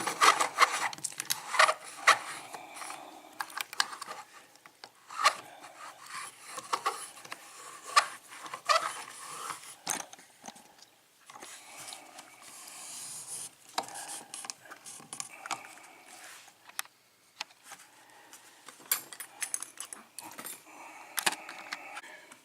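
Irregular small metal clicks, scrapes and rattles from a Kwikset pin-tumbler lock, its key and lockpicking tools being handled close up.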